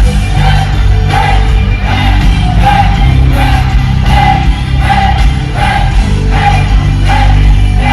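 Live gospel praise-and-worship band playing loudly, with heavy bass and drums keeping a steady beat and a repeating bright note figure, and singing over it.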